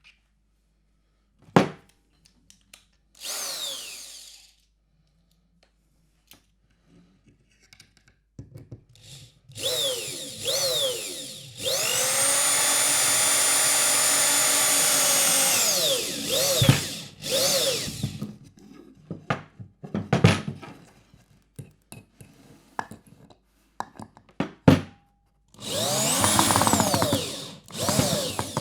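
Cheap electric screwdriver's motor whirring in short bursts and one steady run of about four seconds, its pitch rising as it spins up and falling as it stops. There are scattered clicks and knocks between runs, and another short run near the end.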